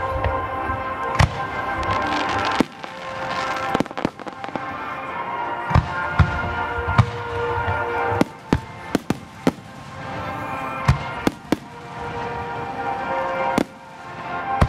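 Aerial firework shells bursting in a rapid series of sharp bangs, about fifteen in all, several coming in quick runs in the middle.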